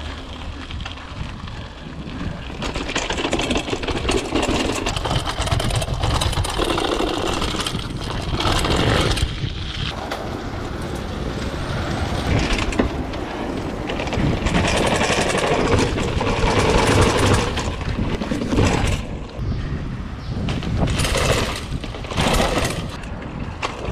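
Mountain bike ridden over paving and stone steps, heard from a camera on the bike: tyres rumbling on stone, with the frame and parts rattling and knocking at irregular moments. The knocks come harder near the end.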